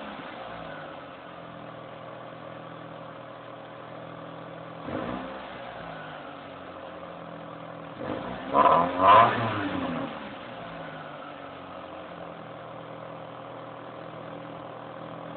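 2006 Mitsubishi Lancer Ralliart's four-cylinder engine on its stock exhaust, idling steadily with a short throttle blip about five seconds in and two quick, louder revs near the middle, each dropping straight back to idle.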